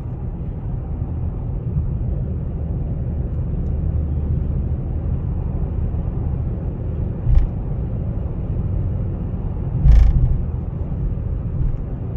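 Cadillac CTS Sport Wagon on the move, heard from inside: a steady low rumble from the road and drivetrain, with two short knocks, a small one about seven seconds in and a louder one near ten seconds. The owner hears an abnormal noise while driving and cannot find its cause.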